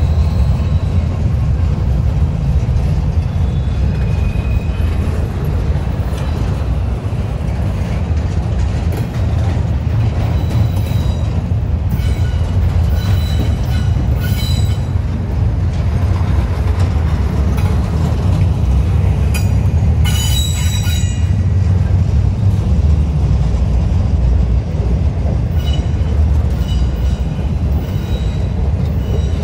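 Freight train rolling past with a steady low rumble of wheels on rail, broken by brief high-pitched wheel squeals several times, loudest about two-thirds of the way through.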